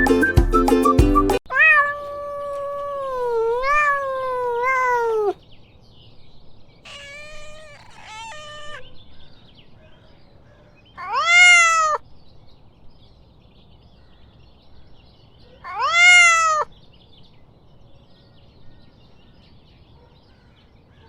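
Domestic cat meowing: one long wavering meow, then a quick run of three short meows, then two loud meows that rise and fall in pitch about five seconds apart. A short bit of music ends about a second and a half in.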